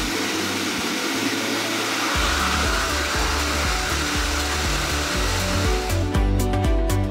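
Pet grooming blower (high-velocity dog dryer) blowing a steady rushing stream of air, over background music with a steady beat; the blower cuts out about six seconds in, leaving the music.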